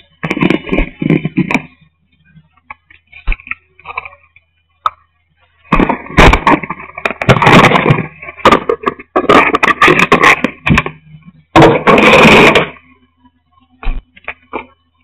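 Handling noise on a pen camera's built-in microphone: fingers gripping and rubbing the camera body in irregular loud crackling bursts with sharp clicks, several seconds long, with quieter gaps between them.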